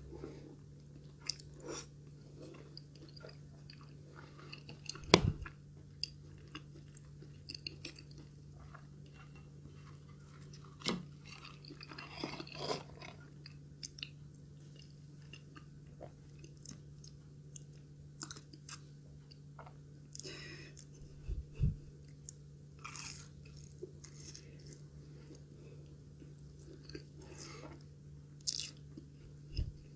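Close-miked chewing and crunching of crispy fried breaded katsu, with small wet mouth clicks. A few low thumps come through, the loudest about five seconds in. A steady low hum runs underneath.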